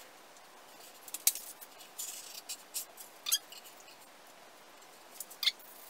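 Faint, scattered scratches and light clicks of automotive carpet being smoothed by hand and peeled back off a wooden subwoofer box, with a longer rasp about two seconds in.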